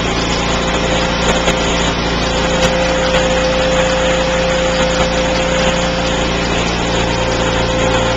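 Engine of a portable engine-driven welding machine running steadily at a constant speed, with no arc struck, giving a low hum with a steady higher tone above it.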